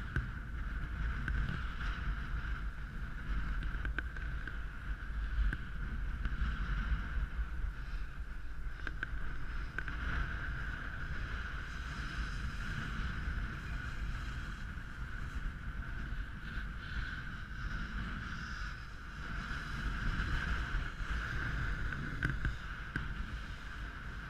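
Wind rumbling on a camera microphone high on an open mountainside, a steady low buffeting with a constant hiss, broken by a few faint clicks.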